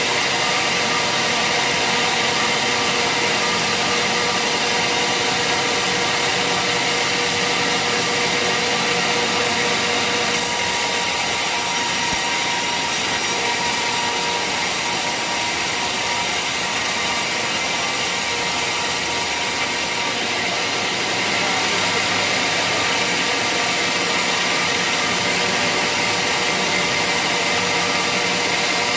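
Sawmill saw cutting waru (hibiscus) wood, running steadily with a continuous rasp and whine that eases slightly about twenty seconds in.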